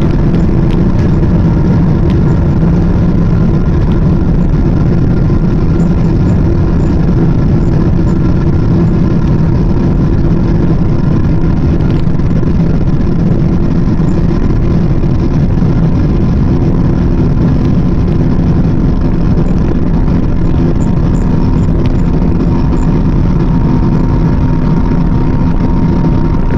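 Jet engines of a Boeing 777-300 airliner at takeoff thrust, heard from inside the cabin during the takeoff roll: a loud, steady engine hum with several held tones over a continuous low rumble.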